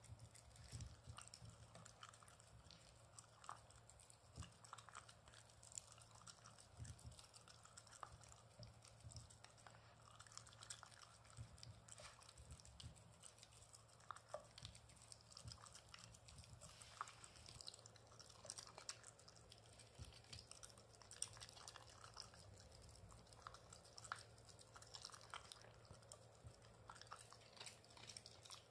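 Shiba Inu eating soft jellied venison terrine from a stainless steel bowl: faint, irregular chewing with scattered short clicks of mouth and teeth.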